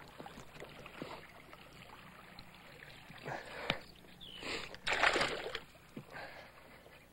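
Water splashing in several short bursts as a hooked bass thrashes at the surface while being reeled in. The loudest splash comes about five seconds in.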